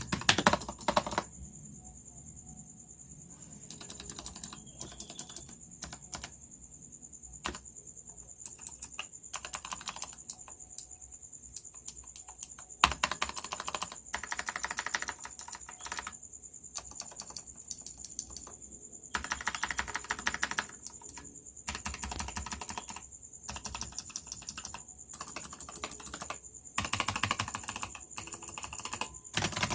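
Typing on a keyboard with Razer Purple opto-mechanical switches, which are clicky: runs of fast keystrokes in bursts of a few seconds, broken by short pauses.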